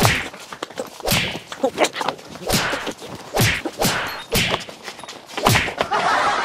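A string of punch-and-whoosh fight sound effects, a sharp hit with a swishing tail about once a second, as blows land on a man on the ground.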